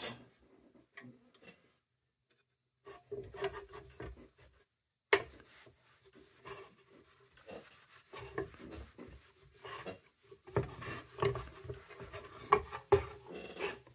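A brush working linseed oil into the corners of a lantern part, in short, irregular scrubbing strokes with a sharp click about five seconds in. The strokes start after a couple of near-silent seconds and grow busier near the end.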